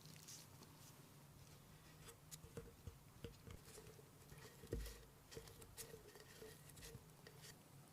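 Near silence with faint, irregular small clicks and taps, and one soft thump a little under five seconds in.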